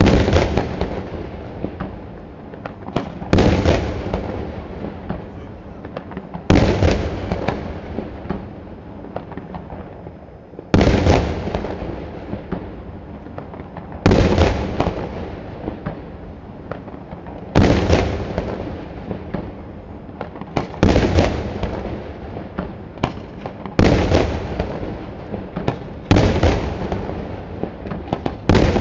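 Daytime aerial fireworks shells bursting overhead: about ten loud bangs, roughly one every three seconds, each followed by a long rolling echo, with a few smaller cracks in between.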